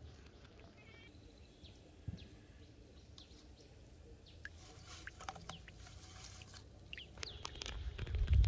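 Birds chirping outdoors in short, scattered calls, more of them in the second half. Near the end a louder low rumble and a quick run of clicks rise over them.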